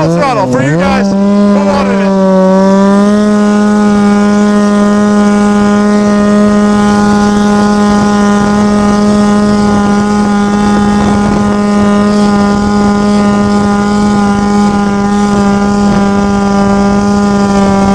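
Ski-Doo MX Z 700 snowmobile's two-stroke twin engine revving up and down for the first couple of seconds, then held at one steady pitch as the sled runs at speed.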